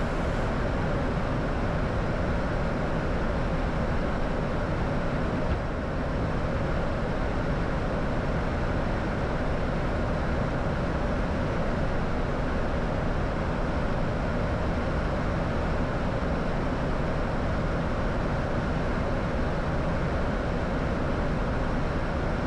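Steady rush of airflow and engine noise inside a Boeing 737-800 cockpit in flight, dipping slightly about five and a half seconds in.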